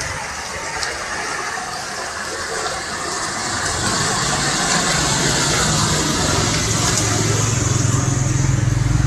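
Rushing water and rain on a flooded road, with a vehicle engine growing louder from about three seconds in as it drives through the water.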